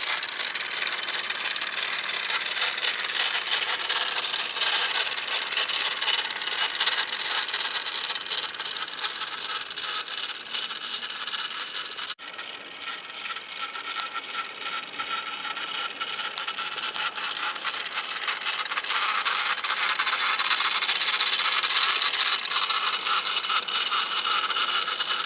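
Wilesco radio-controlled live-steam model traction engine running and driving on concrete: a fast, steady metallic clatter and hiss from its small steam engine, drive chain and metal wheels. There is a brief break about halfway through.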